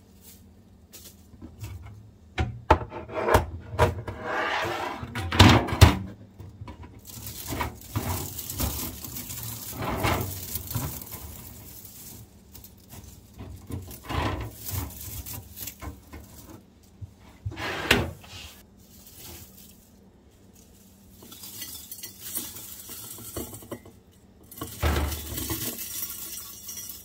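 Dried zucchini shreds and a mesh dehydrator sheet rustling and crinkling as they are handled on a stainless-steel wire rack, with irregular clinks and rattles of metal and glass. Near the end, dried shreds pour through a metal funnel into a glass jar.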